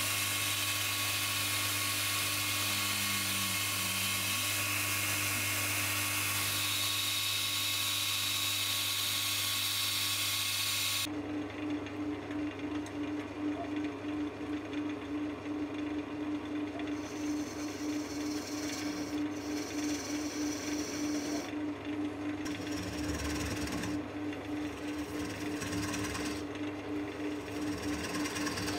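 A grinder runs with a steady, high hiss of steel being ground as a bowl gouge is sharpened. About eleven seconds in, this gives way to a wood lathe's motor humming steadily, with the gouge cutting the inside of a small cherry bowl in intermittent hissing scrapes.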